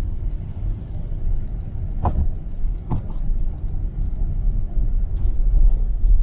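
Steady low rumble of a car's road and engine noise heard from inside the cabin while driving, with two short knocks about a second apart around two seconds in.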